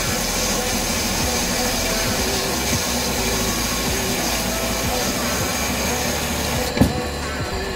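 Metal-cutting band saw running and sawing through a thick steel block, a steady machine drone with a high hiss of the blade in the cut. A single knock near the end, after which the high hiss falls away.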